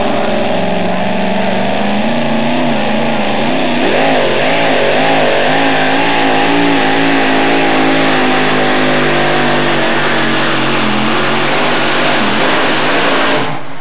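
Supercharged engine of a two-wheel-drive pulling truck running hard at high revs under load as it drags the sled. Its pitch wavers up and down about four to six seconds in, then holds high. The sound cuts off abruptly near the end.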